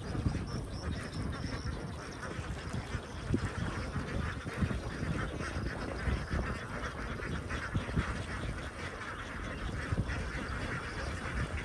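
A large flock of young domestic ducks quacking together, many voices overlapping into a dense, continuous chatter.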